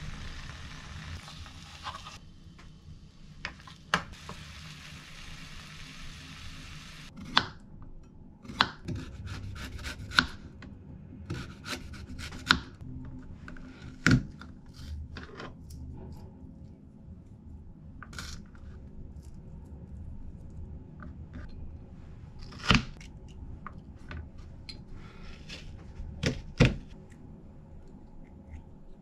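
Frying sizzle from a pan that cuts off about two seconds in, followed by a kitchen knife slicing cucumber and carrot on a plastic cutting board: irregular sharp taps and knocks of the blade on the board. Near the end, metal vegetable cutters are pressed by hand through the slices.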